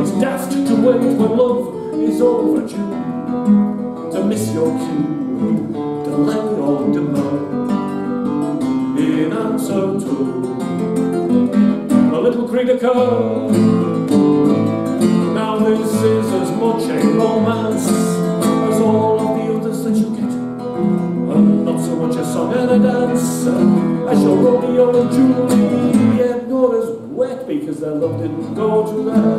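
A man singing a song while accompanying himself on a classical guitar, plucking and strumming throughout.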